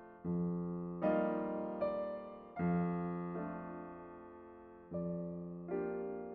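Background music: gentle electric piano chords, each struck and left to fade, a new one about every second.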